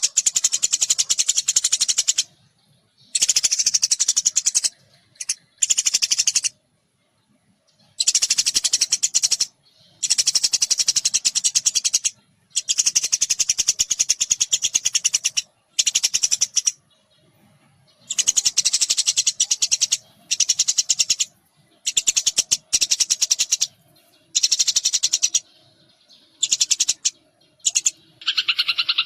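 Small pipit-type birds (sparrow- or munia-like) chattering in high-pitched, rapid bursts of one to three seconds, separated by short gaps. Near the end a lower, different call takes over.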